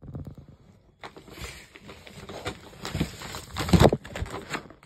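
Rustling, clicking and knocking of firework cake boxes being shifted and handled. About a second of quiet comes first, and there is a louder bump late on.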